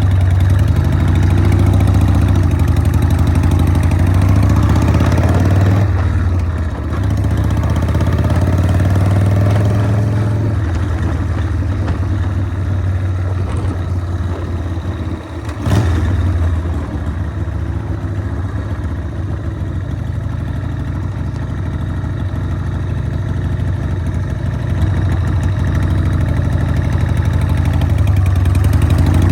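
Harley-Davidson Sportster chopper's V-twin engine running on the move, its revs rising and falling, with brief drops in level about six seconds in and about halfway through, and a single sharp knock just after the second drop.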